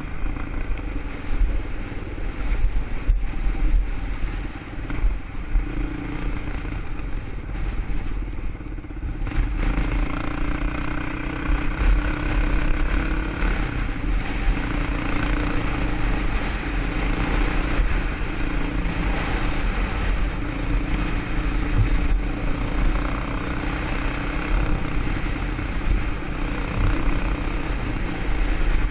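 ATV engine running while riding, a steady drone that grows louder and fuller about ten seconds in and then holds.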